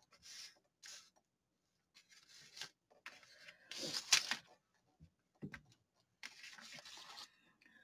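Hands rubbing down and sliding a sheet of art paper across a desk: faint, scattered paper rustles and rubs, the loudest about four seconds in.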